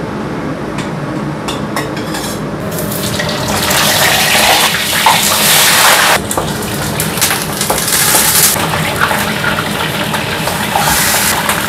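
Whole fish frying in oil in a stainless steel wok, a steady loud sizzle that sets in about three seconds in, after a few light clinks of a utensil against the pan.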